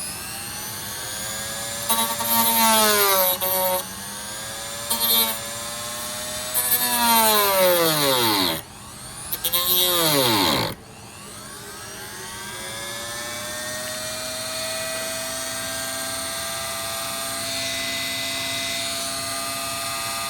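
Handheld rotary tool whining at high speed while cutting plastic of the inside door handle to widen the slot for the Bowden cable. Its pitch drops and it gets louder each time it bites into the plastic. It slows almost to a stop twice past the middle, then spins back up to a steady whine.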